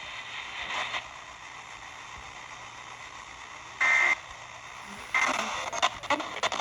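Radio broadcast audio of an Emergency Alert System test: a few seconds of steady hiss, then one short, loud electronic beep about four seconds in, with broadcast audio picking up again about a second later.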